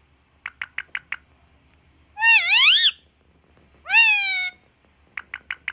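Parrot calling "maa", a meow-like cry, twice: a longer call that dips and then rises, and a shorter one that rises then falls. Each call is set off by a run of four quick clicks, one run before and one after.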